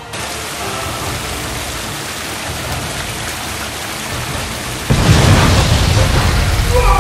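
Film sound effects: steady heavy rain, then about five seconds in a sudden loud boom with a deep rumble that carries on, the blast of a thrown cartoon bomb.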